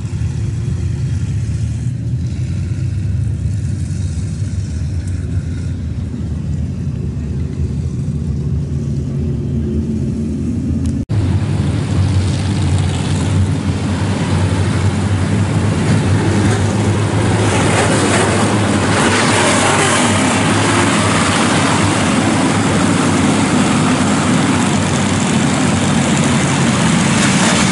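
A field of IMCA SportMod dirt-track race cars running at slow pace speed in a bunched pack. Their engines give a steady low hum that cuts off abruptly about 11 seconds in, then comes back louder and grows louder again as the pack rolls closer.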